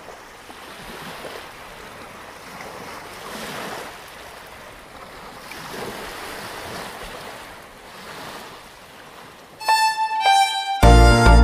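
Sea surf washing in, a steady hiss that swells and falls back every couple of seconds. About two seconds before the end, music starts: a held high note, then loud chords with deep bass.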